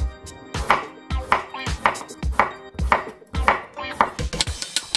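Kitchen knife slicing a cucumber into thin rounds on a bamboo cutting board: a crisp cut ending in a knock of the blade on the wood, repeated about twice a second.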